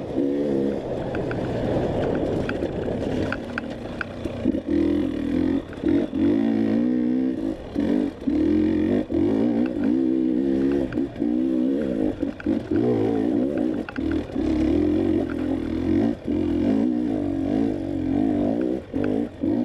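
Off-road dirt bike engine under hard riding, its pitch rising and falling over and over with short drops as the throttle is chopped and reopened, with scattered clattering knocks.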